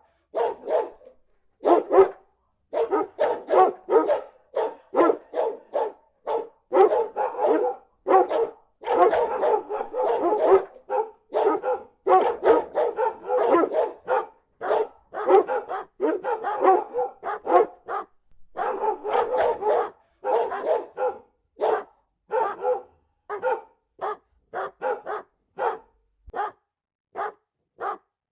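Several dogs barking in alert, short barks overlapping in a dense, continuous volley that thins to single, spaced barks near the end.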